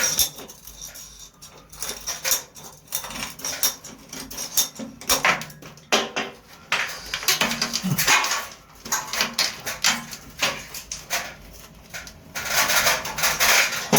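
Irregular knocks, taps and clatter of hand tools and pipe pieces being handled while old water pipes are cut out, with a scraping noise lasting about a second and a half near the end.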